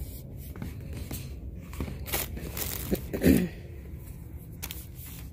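Plastic body wash bottles being handled and set down: scattered clicks, knocks and rustles, the loudest just past three seconds, over a steady low hum.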